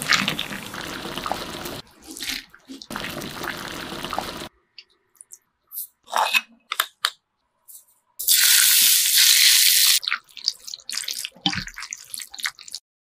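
Wide noodles lifted out of a pot of water, with water splashing and dripping back. About eight seconds in, hot oil poured over the chili and seasonings on the noodles sizzles loudly for about two seconds and stops abruptly. Soft clicks and squelches follow as the noodles are tossed and mixed.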